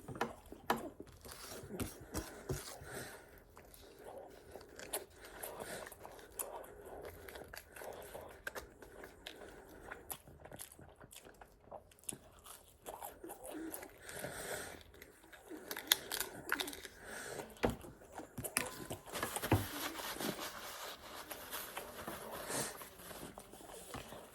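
Close-up chewing and biting of pizza: irregular crunches and wet mouth sounds as the crust is bitten and chewed.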